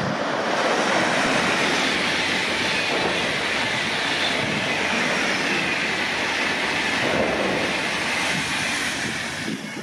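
Deutsche Bahn train passing close by: a loud, steady noise of wheels on the rails, with faint high tones from the wheels, falling away near the end.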